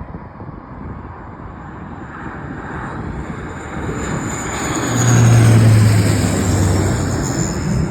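Jet airliner's engines passing by, a rumble with a high turbine whine that grows louder to a peak about five seconds in, its pitch sliding slightly down as it goes past. Wind buffets the microphone.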